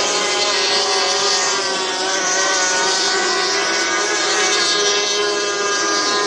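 F500 racing powerboats' two-stroke outboard engines running flat out in a race, a loud, steady engine note made of several overlapping tones that waver slightly in pitch.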